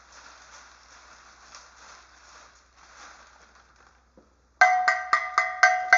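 A cowbell struck rapidly, about four strikes a second, starting near the end and ringing far louder than what comes before. Before it, a faint rustling rattle of paper raffle tickets tumbling in a turning bingo cage.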